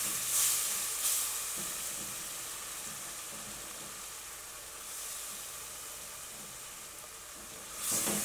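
Onions, garlic and flour sizzling in a nonstick pot after a splash of chicken stock, stirred with a silicone spatula: a steady sizzle, with a few stirring strokes about a second in and again near the end.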